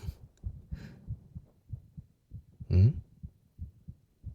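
A man's heartbeat heard close up, as with an ear to his chest: a steady lub-dub of soft low thumps. A little under three seconds in, a short rising hum of a man's voice sounds over it.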